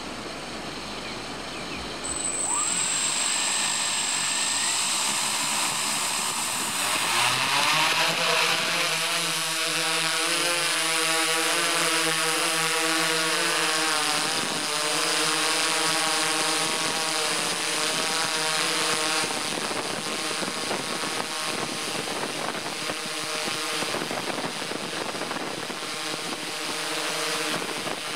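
Multirotor drone's electric motors and propellers spinning up about two seconds in and rising in pitch as it lifts off around seven seconds in, then a steady whine with a slight wavering as it flies, heard from the camera on the drone itself.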